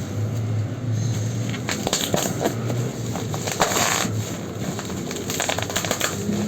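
Parcel packaging being torn open and crumpled by hand, crinkling and rustling in irregular bursts.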